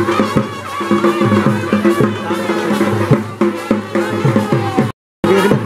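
Music with rapid, irregular drum beats and wavering held tones above them. The sound drops out completely for a moment near the end.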